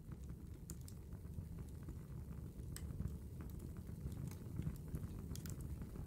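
Fire crackling: irregular sharp pops and snaps over a steady low rumble.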